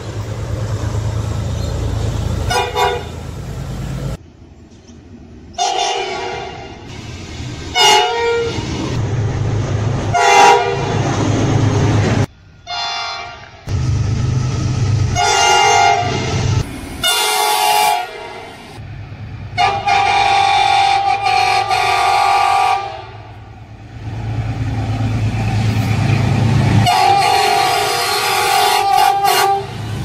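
A 2800 class diesel locomotive's air horn sounds a chord in a run of short toots, then gives a long blast past the middle and another near the end. Under the horn runs the low rumble of the locomotive's engine.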